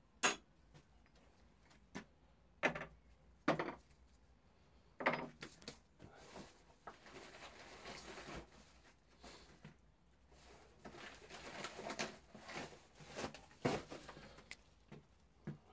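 Workshop handling sounds: several sharp knocks and clicks of parts and tools being picked up and set down, with two longer stretches of rustling in between.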